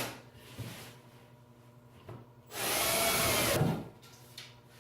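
Power drill with a Torx bit driving an assembly bolt into a wooden barn door frame: one run of a little over a second about halfway through, the motor pitch sagging slightly under load, with a few light knocks before it.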